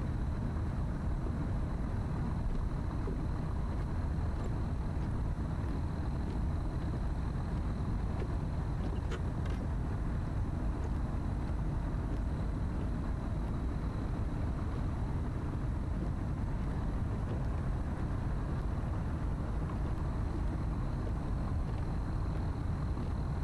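Steady low rumble of distant motor traffic, with a faint steady high tone above it and a couple of faint ticks about nine seconds in.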